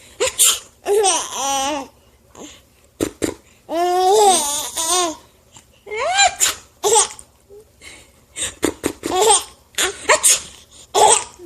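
A baby laughing in repeated high-pitched bursts with short pauses between them, including one longer peal about four seconds in.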